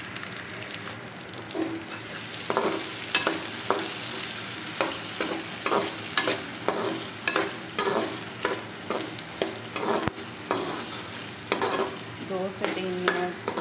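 Diced potatoes, peas and onions sizzling steadily in hot oil in an aluminium pot. From about two seconds in, a slotted steel spoon scrapes and stirs them against the pan about twice a second.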